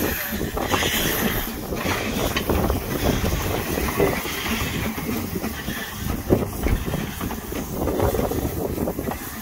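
Ffestiniog Railway double Fairlie steam locomotive Merddin Emrys moving slowly past at close range. Steam hisses from the cylinders over irregular clanks and knocks from the running gear on the rails.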